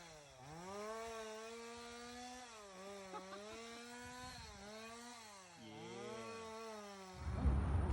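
Honey bees buzzing in flight close by, the pitch sliding up and down as they pass, with two buzzes overlapping about six seconds in.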